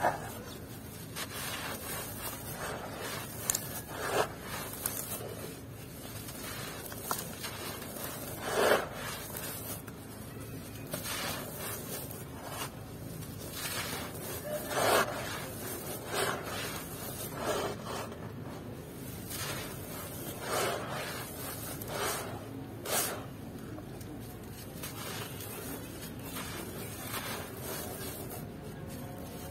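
Dry red dirt crumbled by hand onto a metal plate: a steady gritty rubbing and trickling of grains, with a louder crunch every few seconds as a clump breaks.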